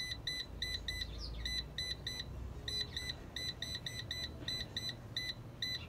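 Power XL Vortex air fryer's touch control panel beeping with each tap as the temperature is stepped down: short high beeps, about four or five a second, in runs broken by brief pauses.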